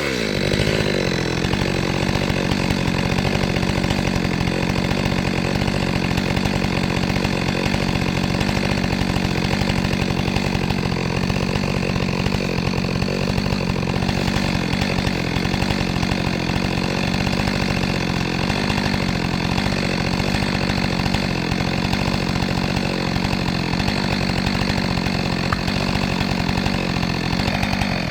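Chainsaw running steadily at high speed, cutting into the trunk of a very large tree being felled.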